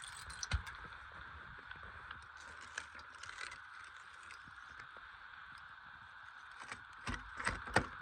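Crisp crunching and crackling of ice-crusted snow and ice, with scattered light ticks and a run of louder crunches near the end.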